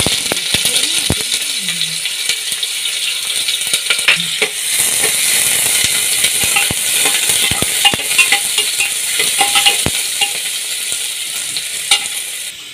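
Sliced onions sizzling in hot oil in an aluminium pressure cooker, with a spoon clicking and scraping against the pot as they are stirred. The sizzle starts suddenly as the onions go in and drops away near the end.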